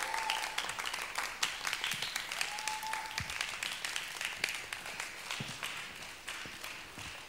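Audience applause: dense, irregular clapping that slowly fades, with a faint voice or two over it.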